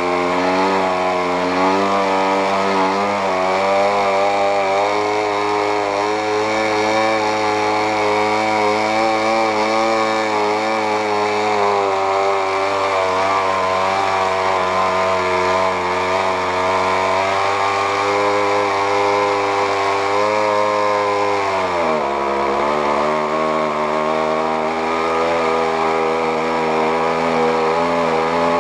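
KMD-2.5 model diesel, a 2.5 cc compression-ignition two-stroke, running warm with its propeller turning, a steady buzzing note that wavers slightly. About three quarters of the way through its speed drops suddenly and it runs on at a lower pitch. It runs with little power, which the owner puts down to a fuel mixture he cannot adjust.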